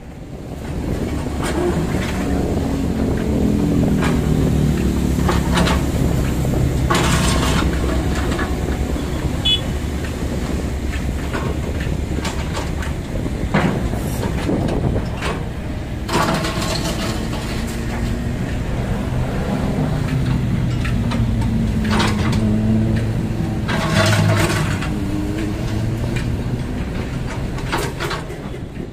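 Hyundai wheeled mini excavator's diesel engine running while it digs, its note rising and falling under load, with several sharp knocks from the bucket working the soil.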